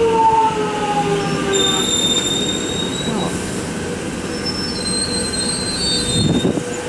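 Alstom X'trapolis 100 electric train running past. Its motor whine falls in pitch at the start, then thin high-pitched squeals from the wheels on the rails come and go over the steady rumble of the running gear.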